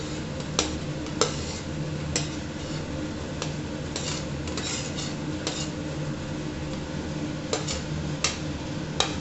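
Metal spoon scraping and tapping on a plate and the rim of a metal pressure cooker as chopped cauliflower stems and potato pieces are pushed into the cooker, giving scattered clinks and scrapes. A steady low hum runs underneath.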